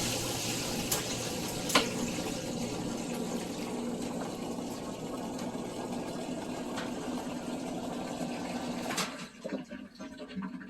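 Whirlpool washer's drain pump running with water rushing out through the drain, a steady low hum under the gushing; it cuts off with a click about nine seconds in, leaving faint ticking. The washer is draining properly again now that the dishcloth blocking it has been removed.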